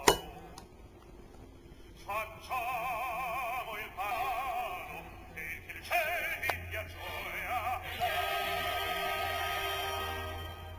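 Operatic-style singing with a wide, wobbling vibrato, ending in long held notes. A sharp click comes right at the start.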